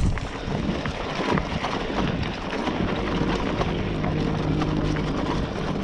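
Scott Spark 960 full-suspension 29er mountain bike rolling fast over a dirt trail covered in dry leaves: steady tyre noise with crunching leaves and frequent small clicks and rattles from the bike, with wind on the microphone.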